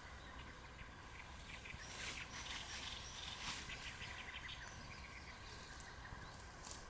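Faint, short bird calls over a steady outdoor background, with a patch of crackling noise about two to four seconds in.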